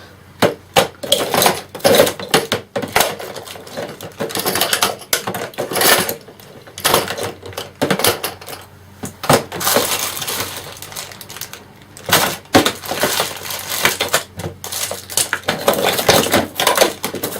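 Rummaging through tools and small metal parts: irregular clinks, knocks and rattles of objects being moved and tipped about while searching for a track-cutting tool.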